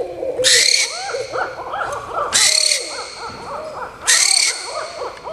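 Barn owl screeching: three harsh, rasping screeches, each about half a second long, coming roughly every two seconds.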